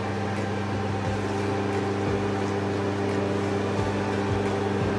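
Induction cooktop running at power under a steel pot of water: a steady electrical hum with cooling-fan noise.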